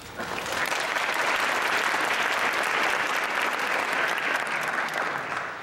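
Audience applauding. The clapping starts a moment in, swells quickly and holds steady.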